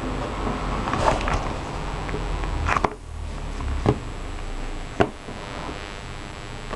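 A BlackBerry Pearl 8110 being squeezed and handled: a few sharp plastic clicks and knocks from its casing and from the desk, the loudest about five seconds in, over a low steady hum.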